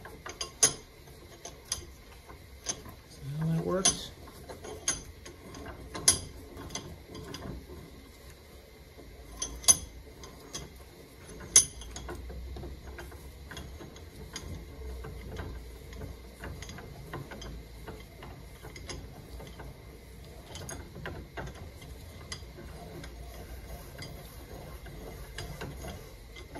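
Cast-iron Columbian bench vise being worked apart by hand: irregular metallic clicks, knocks and clanks from its screw and jaw, with a few sharp clanks standing out.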